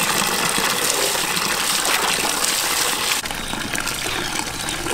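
Tap water pouring in a steady stream into a large aluminium basin of water while lemongrass stalks are rinsed in it. About three seconds in, the splashing becomes a little quieter and less hissy.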